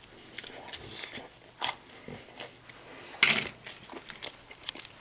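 A person chewing and biting food with crunchy, irregular bites; one louder crunch about three seconds in.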